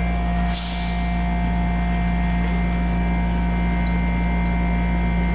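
Steady electrical mains hum: a low buzz with a few constant higher tones above it. There is a brief dip and a short soft rustle about half a second in.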